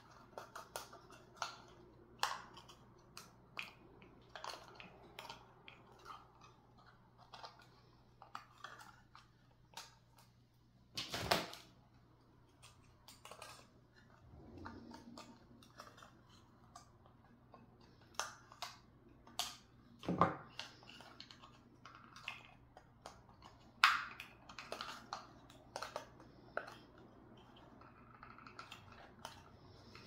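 Thin craft-wood birdhouse pieces being handled and pushed into place: scattered light clicks and taps, with a few louder wooden knocks.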